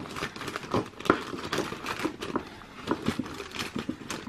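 Thin clear plastic packet crinkling and rustling in short, irregular bursts as it is handled and opened.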